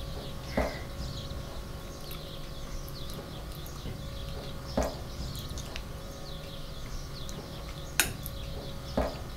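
Knife and fork knocking against a plate four times, the sharpest near the end, over a constant background of small birds chirping and a steady low hum.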